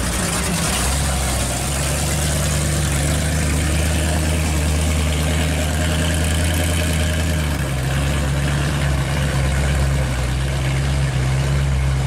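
Supercharged 1955 Chevy Nomad hot rod engine running at a low, steady idle-like note as the car rolls off slowly. About two-thirds of the way through, the pitch of the note shifts.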